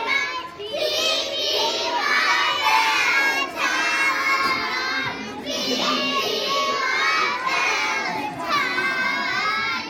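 A group of children shouting together in long, high-pitched cries, with brief breaks between them.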